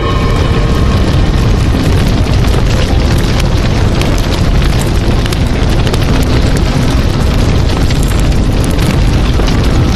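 Loud edited-in sound effect: a dense crackling rumble that runs on without a break.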